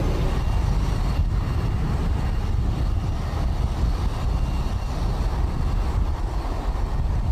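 Boeing 777-200 jet engines at takeoff power, a steady low rumble with little change.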